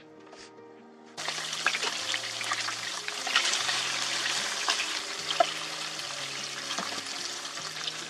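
Hamburger steak patties sizzling in oil in a frying pan, with scattered crackles from spattering fat. The sizzle starts suddenly about a second in.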